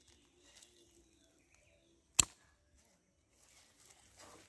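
Hand pruning shears snapping shut through a pumpkin's stem: one sharp click about two seconds in, followed near the end by a soft rustle of vines and leaves as the pumpkin is handled.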